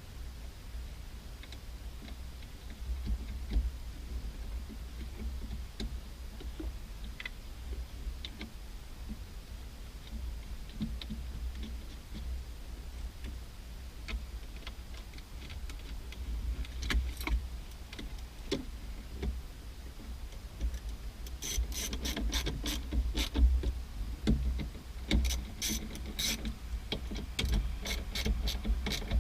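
Hand ratchet and socket clicking as 10 mm nuts are run back down, with light metallic clicks and handling noise over a low steady rumble. Scattered clicks at first, then rapid runs of ratchet clicks in the last seven or eight seconds.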